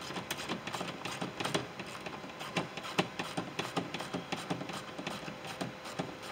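Hand ratchet with a 10 mm socket clicking in short, irregular runs as a bolt is backed out of a truck door panel.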